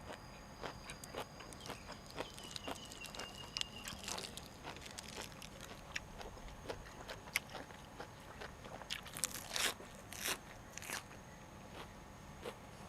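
Close-miked chewing and crunching of food, with many small wet clicks, and a few louder crunches about nine to eleven seconds in.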